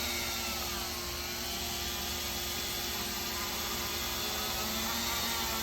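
Small electric power tool motor whirring steadily, its pitch dipping slightly about a second in as it takes load, then recovering.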